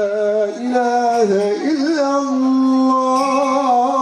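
A man chanting the Islamic call to prayer (ezan) into a microphone. His voice winds through ornamented melismatic turns, then holds one long steady note.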